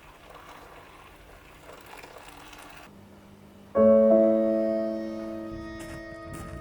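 Background piano music: after a few seconds of near-quiet, a low note comes in and a piano chord is struck about four seconds in, then slowly rings out.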